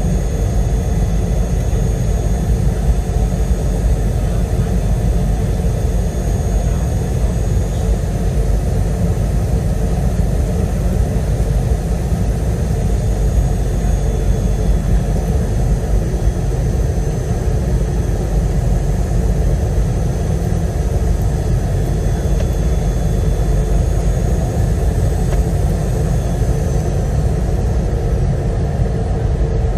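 Steady cabin noise inside an Airbus A321 in flight: a low, even rumble of the jet engines and airflow with faint steady tones above it.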